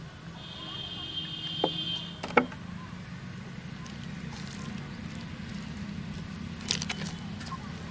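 Hands kneading oiled flour dough in a steel bowl, with soft squishing, two sharp knocks a little after one and two seconds in, and a short cluster of clicks near the end. A steady low hum runs underneath.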